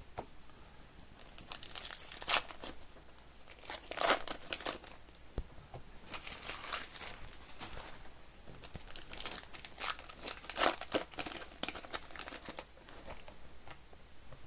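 Wrappers of baseball card packs crinkling and tearing open in several bursts, with quieter rustling in between.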